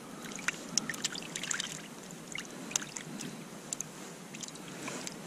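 Scattered water drips and small splashes with light clicks and taps, a few at a time.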